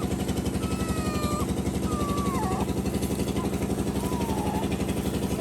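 A small engine idling steadily with a fast, even pulse. Several thin whining calls slide up and down over it.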